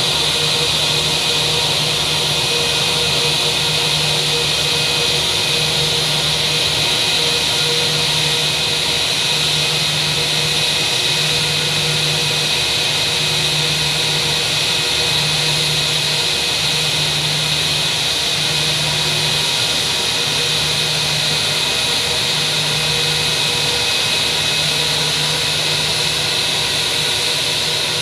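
Jet airliner engines running steadily: a constant loud drone with a high whine and a low hum, without any change in power.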